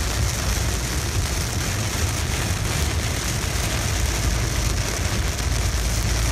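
Heavy rain beating on a car's windscreen and body, heard from inside the moving car over a steady low rumble of the car on the wet road.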